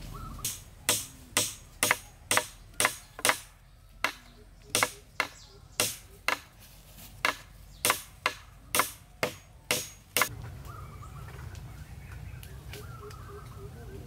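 An orange-handled blade chopping into a wooden pole: about twenty sharp chops, roughly two a second with a brief pause, stopping about ten seconds in.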